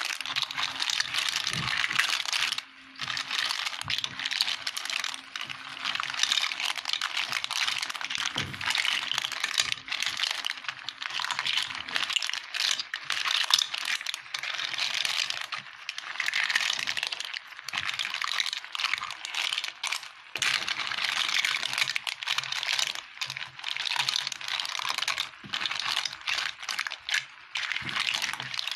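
Clams in their shells clattering and clicking against each other and the pan as a spatula stirs them, over a steady sizzle.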